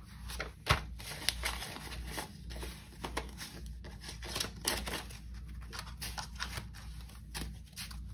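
Paper banknotes being handled and counted by hand: an irregular run of crisp rustles and clicks as bills are flipped and shuffled, with one sharper click about a second in, over a steady low hum.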